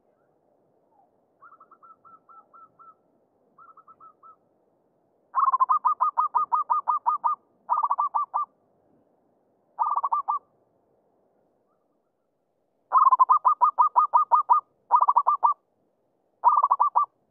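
Zebra doves cooing: rapid staccato series of short, clipped notes, about seven a second. A faint, slightly higher series comes first, then loud series in bursts of one to two seconds with pauses between.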